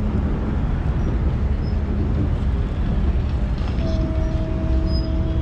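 Steady low rumble of road traffic on a bridge, with no speech over it. About four seconds in a steady two-note tone joins and holds.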